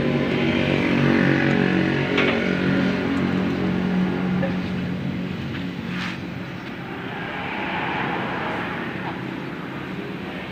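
An engine running steadily, with a sharp click about two seconds in and another about six seconds in.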